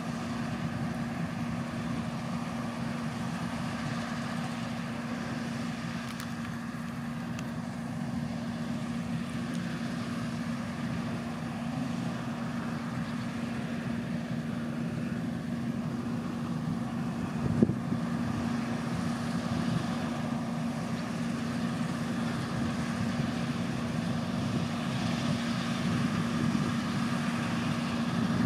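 John Deere 975 combine harvester running at work, its engine and threshing machinery making a steady drone with a constant low hum, mixed with a tractor running alongside. A single short knock a little past halfway, and the sound grows slightly louder toward the end.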